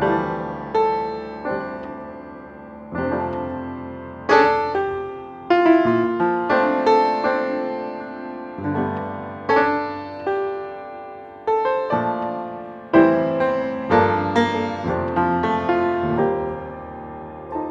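Solo piano music: notes and chords struck one after another and left to ring and fade.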